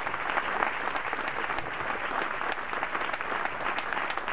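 Audience applauding: many people clapping at a steady level.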